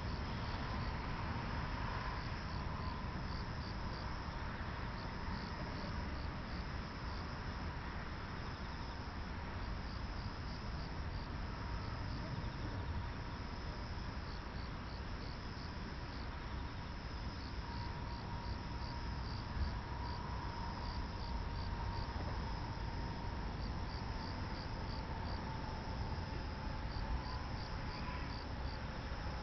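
Crickets chirping in repeated groups of short, rapid pulses over a steady background hiss.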